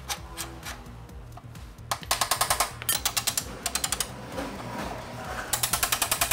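Socket ratchet wrench clicking in quick runs as a bolt is turned on a Honda Super Cub C50's frame near the exhaust, about ten clicks a second, in several bursts with short pauses.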